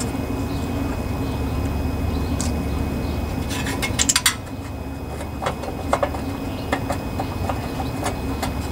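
Small metal parts clicking and clinking as they are handled on a lawnmower engine, with a quick cluster of clinks about four seconds in and lighter taps after it, over a steady low background rumble.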